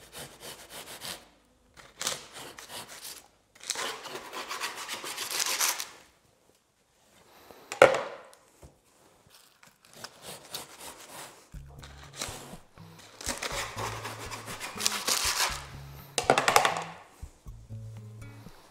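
A long knife sawing through a slab of baked sweet shortcrust pastry, cutting it into slices: several runs of rasping strokes with pauses between, and a sharp knock about eight seconds in. Background music with low bass notes comes in at about twelve seconds.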